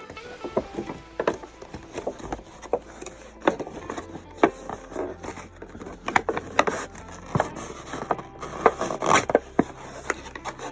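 Packaging being handled: irregular clicks, crinkles and scrapes of plastic blister tray and cardboard as a figure is worked out of its box.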